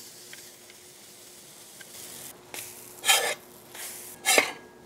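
Pancake batter sizzling faintly on a hot seasoned steel griddle, with two short, louder scraping sounds about three and four and a half seconds in.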